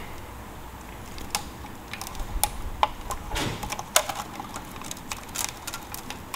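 Irregular metallic clicks and clinks of hand tools working on metal engine parts, a dozen or so spread unevenly, some ringing briefly.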